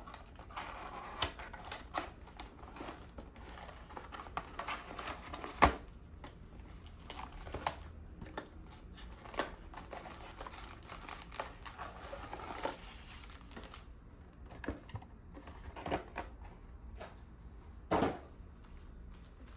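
Plastic wrapping crinkling and cardboard clicking as a sealed box of trading cards is cut open and its packs handled, with scattered rustles, a sharp click about six seconds in and a short knock near the end.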